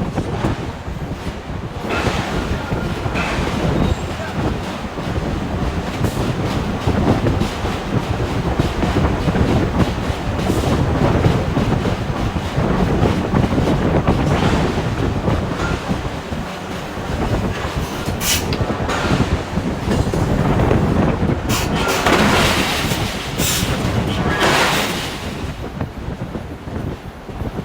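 Forge shop noise: a steady heavy mechanical rumble and clatter from the hammer floor, with a few sharp metallic knocks in the second half.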